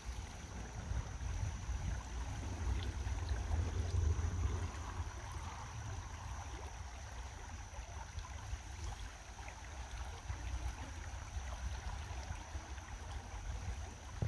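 Shallow river water running, with a low rumble underneath and a thin steady high tone.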